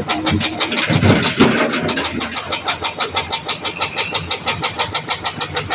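Heavy diesel engine running with an even, rapid pulsing, about seven beats a second. A louder low rumble with a knock swells up about a second in.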